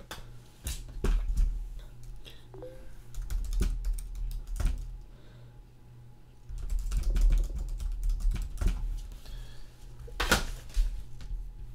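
Typing on a computer keyboard: irregular runs of keystrokes, with a pause about halfway through.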